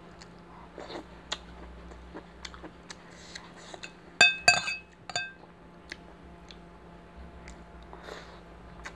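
Metal spoon and fork clinking and scraping against dishes while eating, with light taps throughout. Three loud, ringing clinks come about four to five seconds in.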